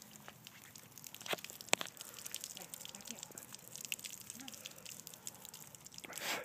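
Garden hose dribbling and spraying water onto a wet pavement puddle: faint scattered patters and drips, with a couple of sharper ticks in the first two seconds and a short louder rush of water noise near the end.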